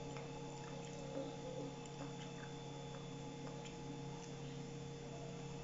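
Faint sounds of a man eating rice and fried chicken with his bare hands: a few soft, scattered clicks and smacks of chewing and handling food over a steady low hum.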